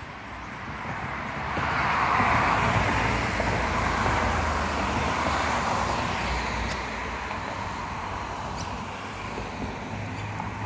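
Road traffic: a passing vehicle's noise swells about two seconds in and slowly fades back to a steady background hum.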